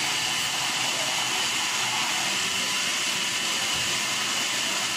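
Electric drink blender running steadily, an even motor whir with hiss.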